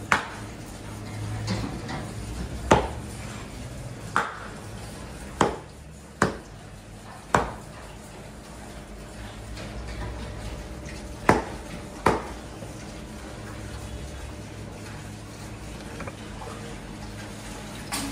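Meat cleaver chopping raw meat on a thick wooden log chopping block: about eight sharp, separate chops, spaced a second or more apart, with a pause of several seconds near the middle and none in the last few seconds.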